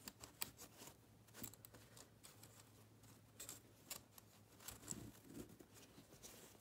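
Faint, irregular clicks and taps with light fabric rustling as an embroidery hoop is refitted to pull the fabric taut.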